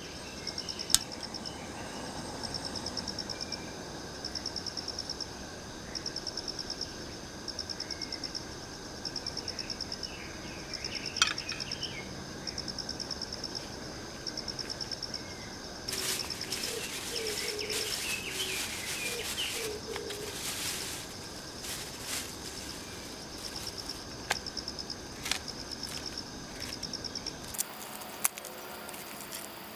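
Insects chirping in regular trains of rapid high-pitched pulses over a steady outdoor hiss. A few sharp pops and a few seconds of crackling past the middle come from the wood campfire.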